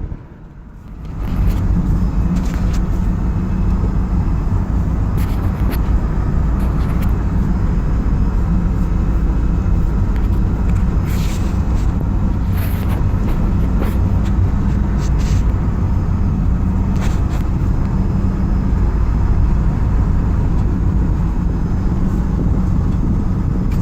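Steady engine and tyre rumble inside a van's cabin as it drives along the road, with a few faint clicks or rattles now and then. The sound briefly drops for about a second at the start.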